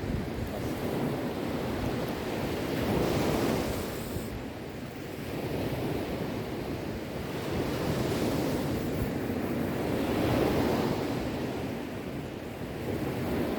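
Sea waves washing onto a shore, a continuous rushing surf that swells and ebbs, with a fuller surge about a quarter of the way in and another past the middle.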